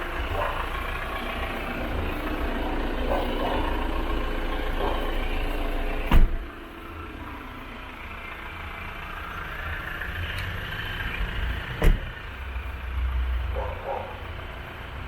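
Vehicle noise with a steady low rumble, broken by two sharp thumps about six seconds apart; the sound is quieter after the first thump.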